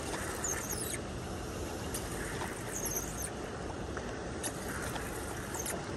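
Steady rush of a flowing river, with brief high squeaks about half a second in and again around three seconds.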